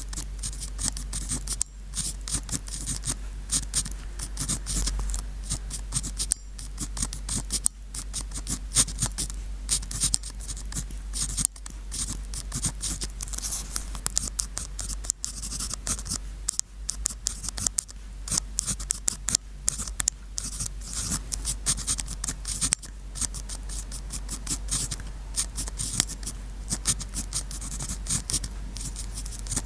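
Pen scratching across sticky-note paper in quick, irregular writing strokes, with short pauses between characters, over a faint steady low hum.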